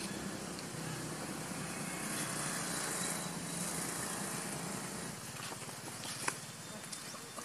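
A motor engine running steadily in the background, fading away after about five seconds; a single sharp click near the end.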